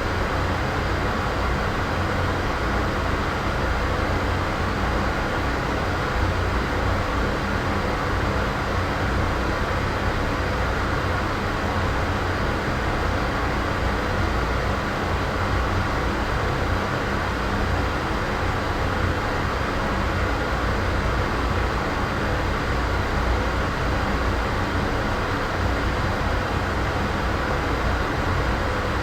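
Steady, unchanging background noise: a low rumble with a faint hum and a soft hiss above it. It is an empty ambience, or room tone, made for filling silent gaps when editing.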